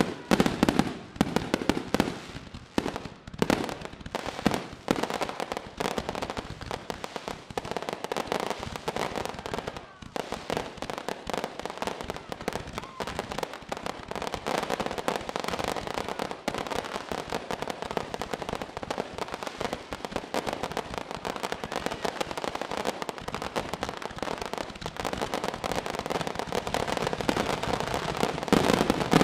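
Fireworks finale barrage: many aerial bursts going off in rapid, overlapping bangs with crackling stars. It is heavier in the first few seconds, settles into a dense continuous crackle through the middle, and grows louder again near the end.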